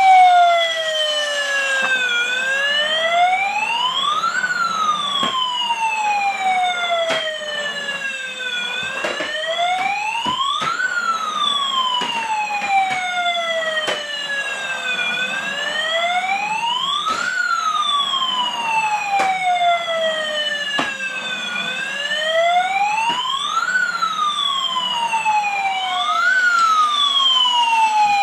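Toy fire truck's electronic siren wailing, rising and falling slowly about every six and a half seconds, with scattered clicks.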